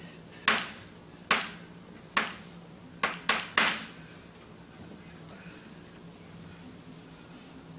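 Marker tapping and striking a whiteboard while writing: six sharp taps over the first four seconds, the last three in quick succession.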